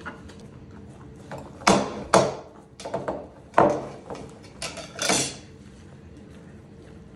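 Holstein cow eating pancakes off a plate on a wooden table: several loud, sudden noisy bursts from its muzzle at the plate in the middle stretch, then quiet.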